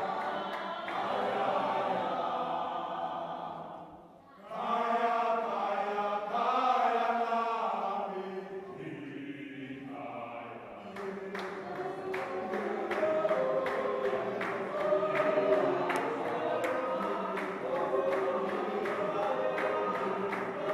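A church choir singing a hymn together, with steady hand claps keeping time, about two to three a second. The singing briefly drops off about four seconds in and comes back.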